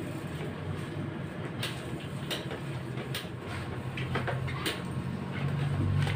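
Homemade electric blower running steadily with a low hum, forcing air into a charcoal stove; the hum grows a little louder near the end, with a few sharp clicks over it.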